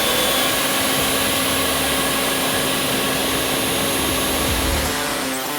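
CNC router spindle running at about 15,200 RPM, slotting through carbon fibre sheet with a 1/8-inch bit, with dust extraction drawing through the dust boot: a steady rushing noise over a steady hum.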